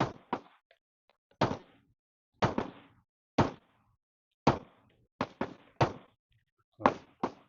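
A Glock 29 Gen 4 pistol firing 10mm Auto rounds: about eleven sharp shots at an uneven pace, sometimes two or three in quick succession and sometimes a second apart.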